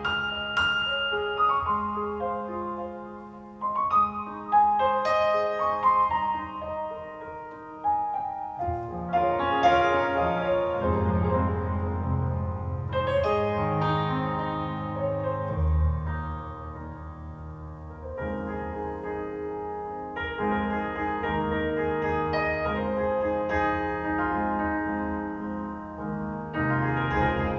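Piano music played back through a pair of Tannoy Kingdom Royal loudspeakers in a living room. Struck notes ring and fade over deep bass notes.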